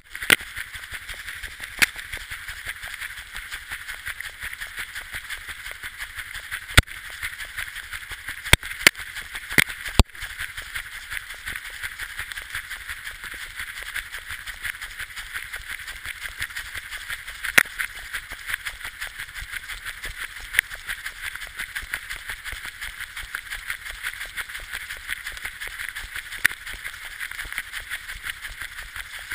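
A sled dog running in harness, heard from a camera mounted on its harness: a steady rapid patter of paws and harness movement, with a few sharp knocks against the camera.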